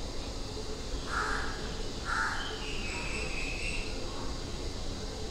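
A crow cawing, two short caws about a second apart, over a low steady background.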